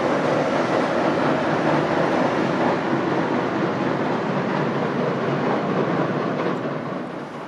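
Electric commuter train rolling across a steel-girder railway bridge, a steady dense rumble of wheels on rail that slowly fades as it draws away and drops off near the end.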